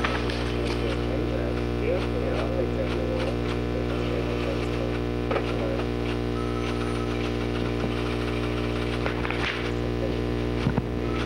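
Steady electrical mains hum, a low buzz with a stack of steady tones above it, with faint scattered clicks and a short louder click near the end.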